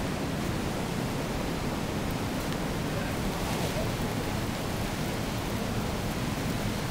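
Ice-choked river in flood: broken ice and meltwater surging downstream after an ice jam has let go, making a steady rushing noise.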